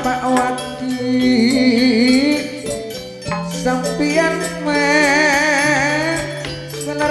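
Javanese gamelan gending with a man singing into a microphone, his voice wavering with vibrato over the ensemble. Low sustained notes underneath shift pitch every two seconds or so.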